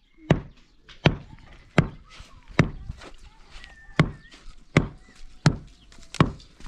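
Repeated heavy striking blows, like a hammer or chopping tool hitting something solid: about nine evenly spaced blows, roughly one every three-quarters of a second.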